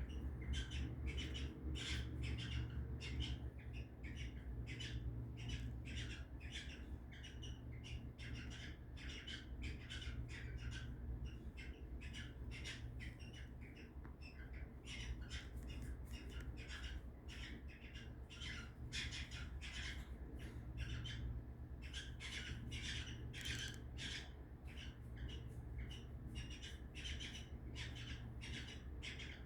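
Cockatiels squawking and chirping in rapid short calls, several a second, over a steady low hum.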